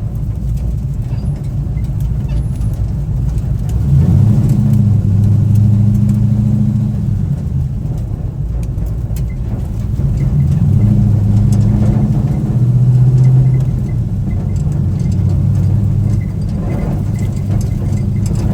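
Pickup truck engine revving and pulling hard on a dirt rally course. Its pitch rises and swells about four seconds in, eases, then climbs again around ten to thirteen seconds, over a steady low rumble.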